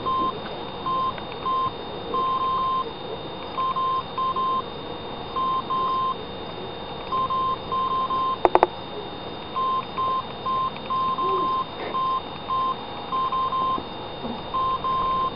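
An electronic beep at a single pitch, sounding in short and long pulses at irregular spacing, over a faint steady high tone and background hiss. A brief burst of clicks comes about eight and a half seconds in.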